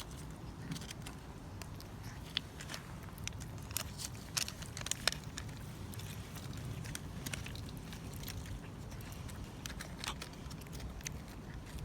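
Cat eating, with irregular small, sharp chewing and mouth clicks over a steady low hum.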